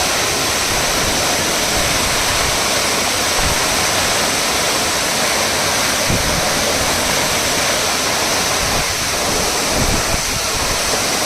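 Waterfall: a steady, loud rush of falling water that goes on without a break.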